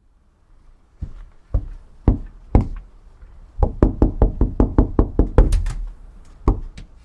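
Knocking on a door: four slow, spaced knocks, then a fast flurry of about a dozen rapid knocks, and one final knock near the end.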